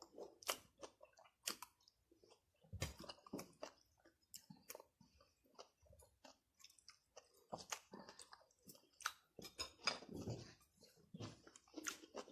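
Close-miked chewing and biting of a meal of fried chicken and kimchi: quiet, irregular crisp crunches and wet mouth sounds.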